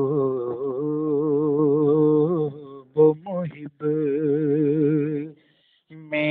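A male voice singing a naat, Urdu devotional verse, in long held notes with a wavering vibrato. The singing breaks off briefly about three seconds in, and again for about half a second near the end, before resuming.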